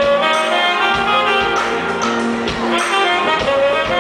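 Live smooth-jazz band: a saxophone plays the melody over bass, keyboards and a steady drum beat.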